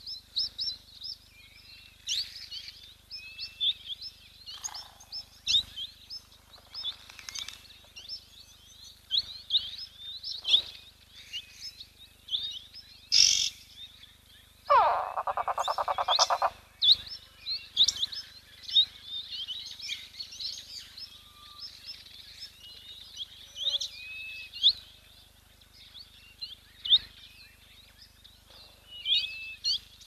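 Many small birds chirping and twittering together throughout. About halfway, a loud, harsh rattling call lasts about two seconds.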